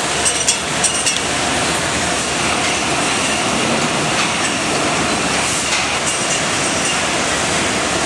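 Factory-floor noise of a poultry processing line: conveyors and machines running steadily, with a few sharp clacks in the first second.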